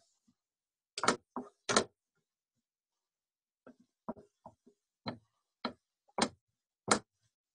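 Wooden spoon knocking and scraping against a frying pan while stirring onions and mushrooms: short, sharp clacks, three about a second in, then a run of them at uneven spacing through the second half.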